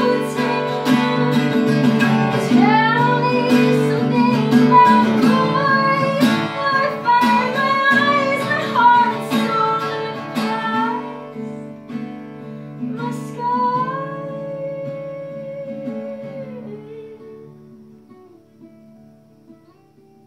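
A woman singing over a strummed acoustic guitar. The strumming eases off about eleven seconds in, she holds one long note, and the guitar then thins to soft picking and fades near the end.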